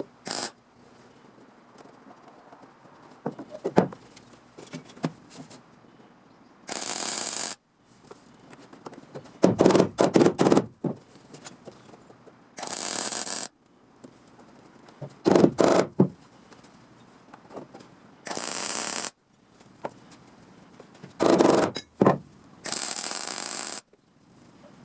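Short bursts of welding on thin sheet-steel car body panel, each a second or two of crackling, taking turns with steady one-second hisses about every six seconds and light scraping between.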